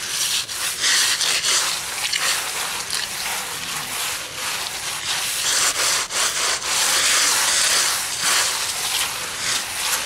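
Sponge float rubbing wet cement repair mortar into a pitted concrete step, in continuous back-and-forth strokes, as the mortar fills the surface holes.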